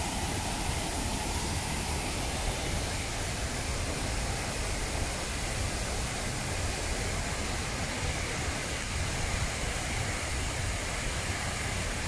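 Keila waterfall rushing steadily: an even, unbroken noise of falling water.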